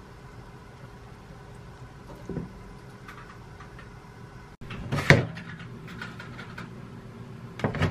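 Kitchen handling knocks: a light knock from the spatula stirring kimchi in a nonstick frying pan, then a ceramic plate set down on a stainless steel counter with a sharp knock about five seconds in and another near the end.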